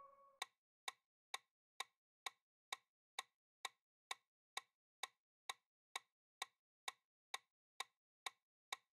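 Countdown timer sound effect ticking steadily, about two short ticks a second, marking off the seconds left to answer.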